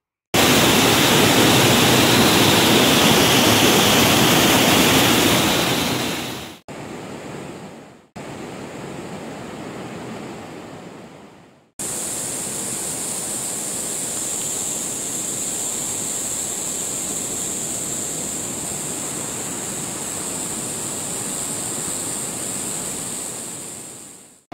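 Ocean surf and wind on the microphone, in several short clips cut together. The loudest stretch is in the first six seconds, followed by two shorter ones that fade out and a steadier, quieter stretch from about twelve seconds in.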